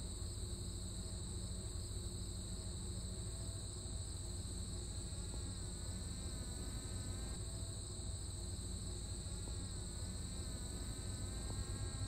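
Steady, dense chorus of crickets trilling in the field. Under it, a faint engine note wavers and rises in pitch near the end: the remote-controlled Subaru Outback accelerating toward the jump with its throttle held open.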